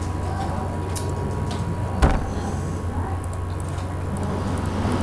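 Steady low electrical hum with background hiss, and a single sharp click about two seconds in.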